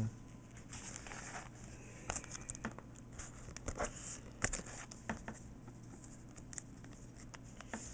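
Plastic binder sleeve pages and trading cards being handled, with irregular soft clicks, taps and crinkles as pages are turned and cards slid in and out.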